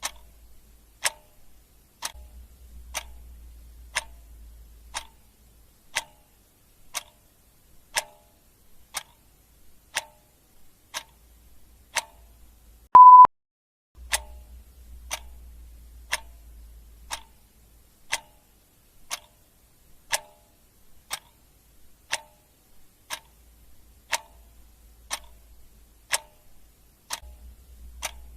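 Clock ticking steadily, about once a second. A short, loud beep sounds about 13 seconds in.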